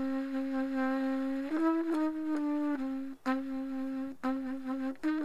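Music: a single wind instrument playing a slow melody. It holds one long note, then moves through a few shorter notes with brief breaks between them.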